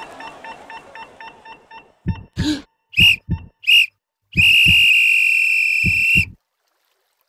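Heart-monitor sound effect: low double heartbeat thumps with a few short high beeps, then one unbroken flatline tone for about two seconds that cuts off into silence. The flatline tone is the sign of the heart stopping.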